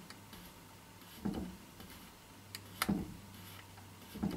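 Light clicks and knocks from hands fitting the rear stock assembly back onto an Ares Striker airsoft sniper rifle, a few short ones about every second and a half.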